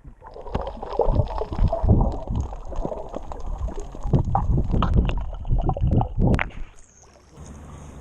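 Seawater sloshing and gurgling right against the microphone, muffled and uneven with crackling surges. It stops about seven seconds in.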